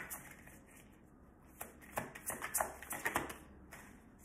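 A tarot deck being shuffled and handled by hand: a run of light, sharp card clicks and flicks, bunched in the middle after a quieter first second or so.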